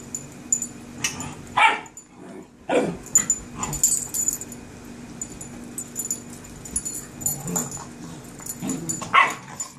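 Puppies play-fighting, giving a handful of short yips and barks, the loudest near the end.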